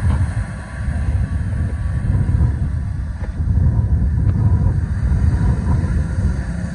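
Bombardier Global Express business jet's Rolls-Royce BR710 engines running as it turns on the runway, a loud, steady low rumble of jet noise with a faint whine above it.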